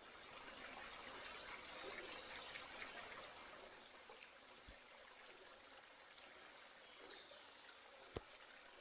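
Faint mountain stream trickling, with one sharp click near the end.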